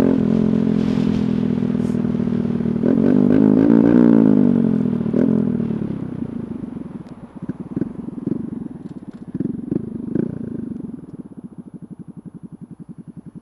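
Honda Grom's 125 cc single-cylinder engine through an aftermarket MNNTHBX exhaust, running steadily and then revving up and back down. As the bike slows it pops and crackles on deceleration, then settles into an even putter at idle near the end.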